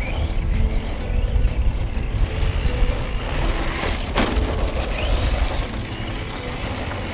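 Arrma Senton 4x2 Boost RC short course truck's brushed electric motor whining as it is driven, the pitch gliding up and down as it accelerates and slows, with a steep drop about four seconds in, over a steady low rumble.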